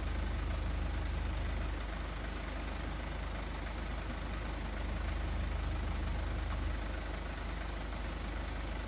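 A vehicle engine idling steadily, the sound mostly low in pitch and even throughout.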